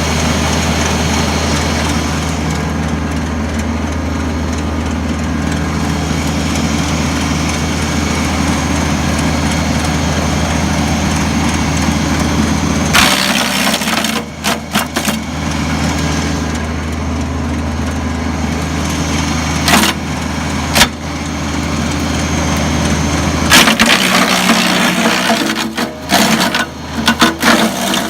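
Bear Cat wood chipper running, its engine humming steadily, with loud bursts of cracking and splintering wood as logs are fed in and chipped: once about halfway through, two short cracks a few seconds later, and a longer run of chipping near the end. The engine note drops as each log is taken.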